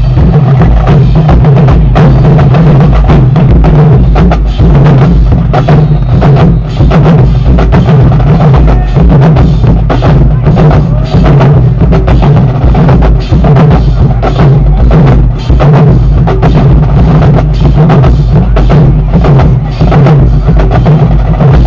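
Marching band drumline playing a loud, fast drum cadence, with heavy bass drums under rapid, evenly spaced drum strikes.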